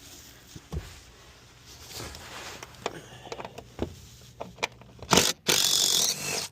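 10 mm socket wrench working a rear seat-back screw loose: scattered light clicks and scrapes of the tool, then a loud rasping burst lasting about a second near the end.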